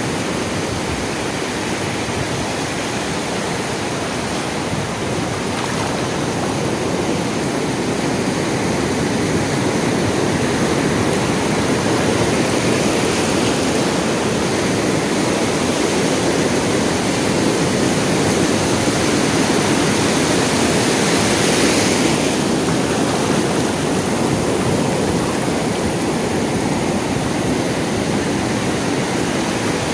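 Sea waves washing onto a shore, a continuous rush of surf that slowly builds and then falls away abruptly about two-thirds of the way through.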